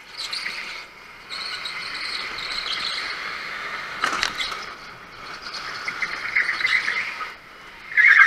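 Go-kart tyres squealing on a polished concrete track through the corners, in high-pitched bursts that come and go, with a short knock about four seconds in. The loudest squeal comes near the end.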